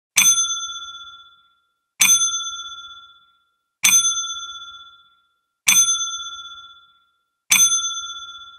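A bell-like ding sound effect, struck five times about every 1.8 seconds, each strike ringing out and fading over about a second; it marks each bullet point appearing on a title slide.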